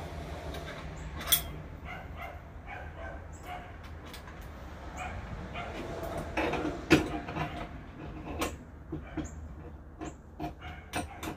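Scattered clicks and knocks of tools and metal parts being handled on a workbench, over a steady low hum.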